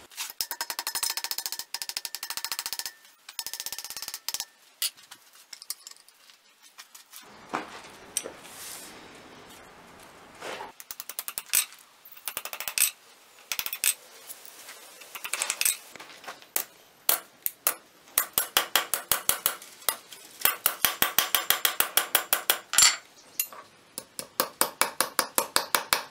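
Small hammer tapping a thin copper sheet folded around the base of a sword blade against an anvil: light metallic taps, scattered at first, then in quick runs of several a second through the last third.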